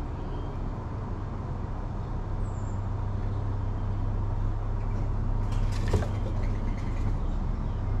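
Steady low hum of a motor or engine running, with a short clatter of clicks and a knock about six seconds in.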